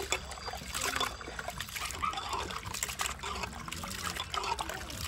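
Hands working raw prawns in a metal pot of water: irregular sloshing and splashing with many small clicks.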